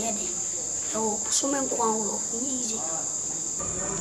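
Crickets chirring in a steady high-pitched drone, with quiet talking over it for a second or two in the middle.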